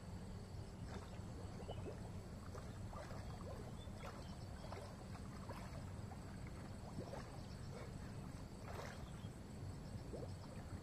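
Faint sloshing and trickling of canal water, with scattered small splashes over a low steady rumble.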